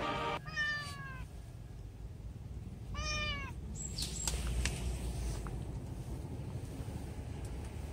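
Black-and-white cat meowing twice: a longer meow falling in pitch just after the start, then a shorter one rising and falling about three seconds in. A few faint clicks follow over a low rumble.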